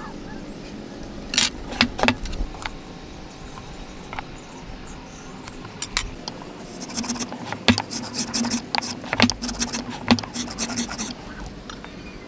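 A metal combination square and steel rule clicking and tapping against a wooden block and workbench as timber is marked out. A few sharp clicks come about a second and a half in, then a busier run of metallic clinks and taps from about seven to eleven seconds.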